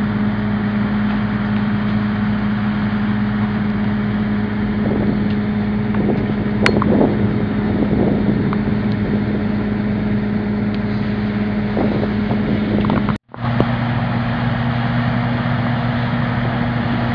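Fire engine running steadily with an even drone, while its pump feeds the hoses, and a few faint clicks around the middle. The sound drops out for a moment about two-thirds through, and the drone comes back at a slightly different pitch.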